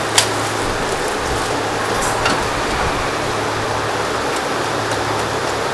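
Water boiling in a commercial noodle cooker with mesh baskets, a steady bubbling hiss over a low hum, with a short metal click near the start.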